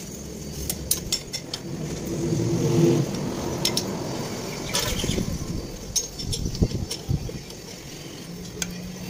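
Scattered sharp metallic clinks of hand tools and a steel bar against a truck leaf-spring pack. Under them, a vehicle engine hum swells to its loudest about three seconds in and then fades.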